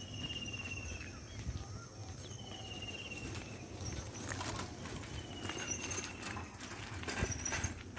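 Birdsong: one bird repeats a short rattling trill that dips slightly in pitch, three times a couple of seconds apart, with a few higher chirps in the second half. A steady high whine runs behind it, and there are a few clicks and a brief clatter near the end.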